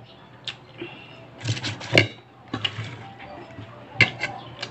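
Close-up eating sounds: chewing and mouth smacks on a mouthful of rice eaten by hand, with scattered clicks and knocks from hands and dishes, the sharpest about two seconds in. Near the end a glass Coca-Cola bottle clicks as it is picked up off the table.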